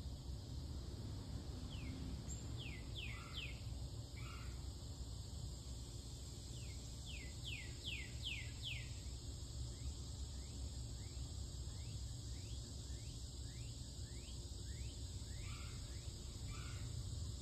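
Outdoor summer ambience: a bird calls in runs of short, quick falling notes, several in a row, with the clearest runs about two seconds in and again a few seconds later. Under it is a steady high insect hiss and a low steady rumble.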